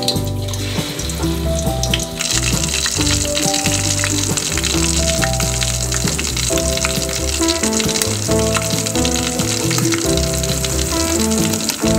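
Batter-coated squid deep-frying in hot oil in a stainless steel pot: a dense sizzle that jumps up sharply about two seconds in as a battered piece goes into the oil, then stays steady. Background music plays underneath.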